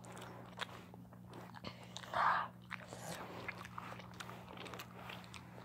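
A person chewing cocktail shrimp close to the microphone: scattered wet mouth clicks and smacks, with one louder, breathy-sounding noise about two seconds in. A faint steady low hum runs underneath.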